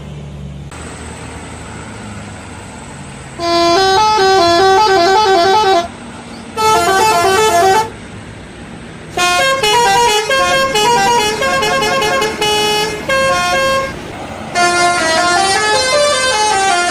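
Indonesian bus telolet horn, a bank of electrically switched air-horn trumpets, playing short tunes of stepping notes in four loud bursts. The first burst starts about three and a half seconds in; the later ones run longer. Before it there is only steady vehicle noise.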